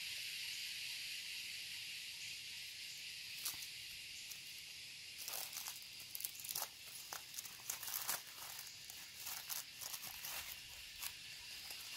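Knitted wool hood rustling and scraping close to the microphone as it is pulled down over the face, in many short scratchy rustles from about five seconds in, over a steady high-pitched hiss.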